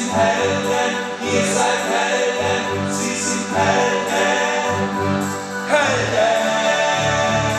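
A man singing a song in German at a microphone to acoustic guitar, over a steady low beat; about six seconds in, his voice swoops up on one note and slides back down.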